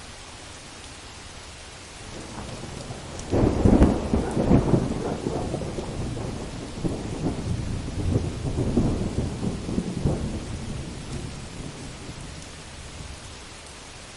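Heavy rain with a thunderclap: a low rumble builds, a sharp crack breaks about three seconds in, and rolling thunder follows in several surges before fading back to the steady rain over about ten seconds.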